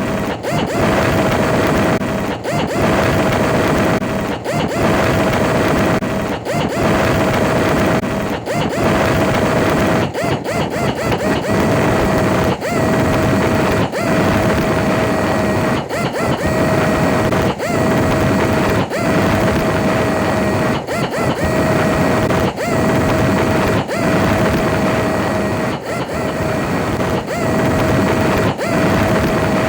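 Buffing machine running with a steady whine over a rushing noise, the sound dipping briefly about every two seconds.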